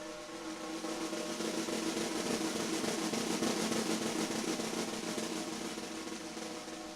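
A 14x7 Brady Marri ply snare drum played in a sustained roll, the snare wires rattling over the drum's low ringing tone. The roll swells to its loudest about halfway through, then dies away.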